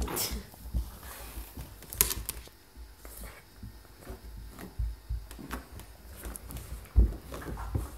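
Handling noise from a handheld camera being moved about: irregular soft clicks and low thumps, with a sharper knock about two seconds in and another about seven seconds in.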